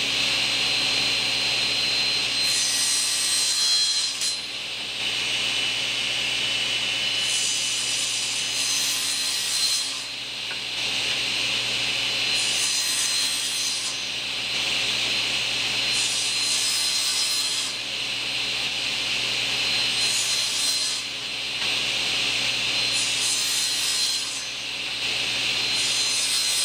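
Table saw running steadily, with about seven short cutting passes, each a second or two long, as the blade trims protruding spline stubs flush at the corners of a small picture frame.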